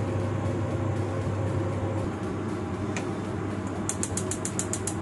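Pot of rice porridge simmering over a gas stove burner: steady bubbling and burner noise with a low hum. Near the end comes a quick run of light clicks.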